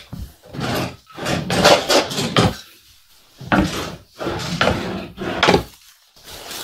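Wooden sideboard cupboard doors and drawers being opened, shut and rummaged through: a series of short wooden knocks, slides and rustles with brief pauses between them.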